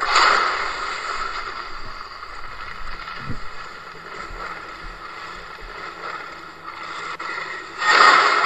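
Homemade smoke monster sound effect: a harsh rushing surge that starts at once and fades over a few seconds into a lower churning noise, then surges again near the end.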